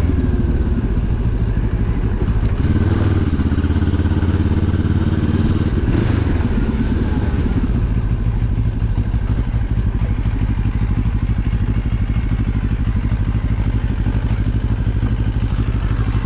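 QJMotor SRT 700's parallel-twin engine running at low speed. Its note rises briefly about three seconds in, then holds steady at low revs.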